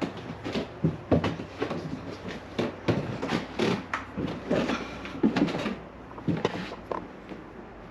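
Footsteps climbing old wooden stairs: irregular knocks and thuds, a few each second, with short wooden creaks.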